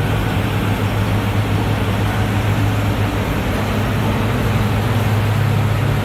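Heavy diesel farm machinery running steadily, a constant low engine drone with machinery noise over it.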